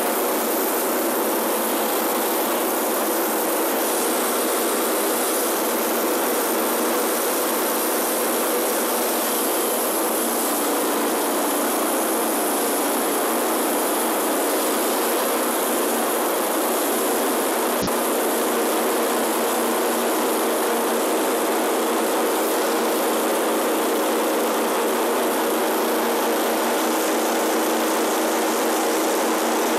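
Wood-Mizer LT10 portable bandsaw mill running steadily, its engine droning with the band blade cutting through a log as the sawhead advances. A single sharp click comes about 18 seconds in.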